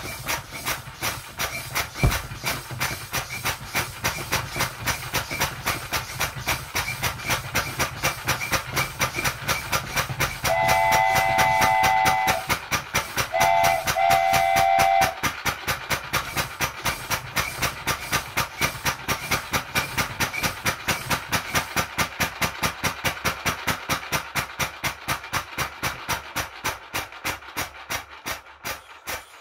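3D-printed single-cylinder compressed air engine running off a pumped-up plastic bottle, its valve puffing out air in a steady rhythm of about four to five puffs a second, which fades toward the end as the bottle's pressure drops. A single knock comes about two seconds in, and a steam train whistle blows twice in the middle.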